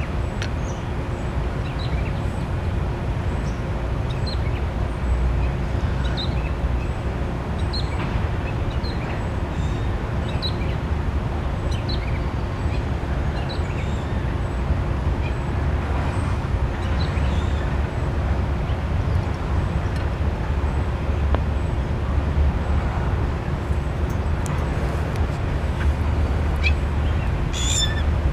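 Lincoln Portatorch oxy-acetylene torch burning with a neutral flame: a steady rushing noise, heaviest in the low end, as the flame is worked in and out to melt a molten pool along a thin 20-gauge mild steel seam. Faint short chirps come through, a few more near the end.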